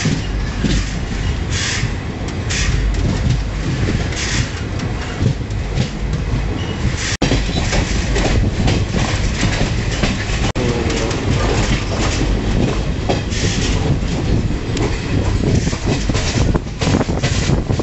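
Goods train wagons passing close alongside, heard from a moving train: a loud steady rumble with the rapid clickety-clack of wheels over rail joints.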